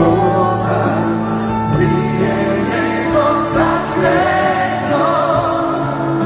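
Live band playing a slow song through an arena sound system, with piano and violin, and a singing voice over the music.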